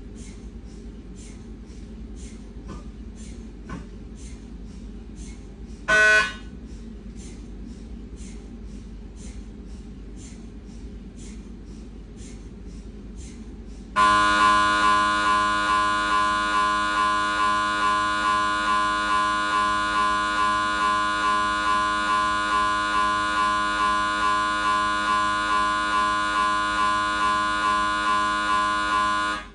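Siemens MAGNETOM Lumina 3 T MRI scanner's gradient coils during a diffusion-weighted echo-planar abdominal scan. At first there is faint, regular ticking about twice a second, with one brief loud buzz about six seconds in. Then, at about fourteen seconds, a loud, steady buzzing tone with many overtones starts, pulsing about three times a second, and cuts off just before the end.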